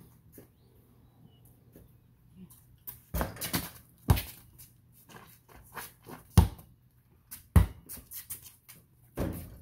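Basketball bouncing on a concrete driveway as it is dribbled, several sharp thumps at uneven spacing beginning about three seconds in.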